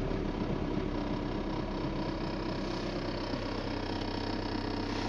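A strange steady mechanical noise from a Škoda Octavia: a continuous fast, even flutter or rattle, with a faint steady whine above it.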